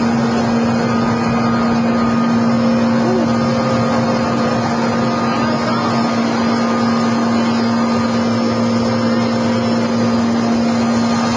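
Mi-8 helicopter's twin turboshaft engines and main rotor running steadily on the ground, heard loud from inside the cabin as a constant drone with a steady low hum.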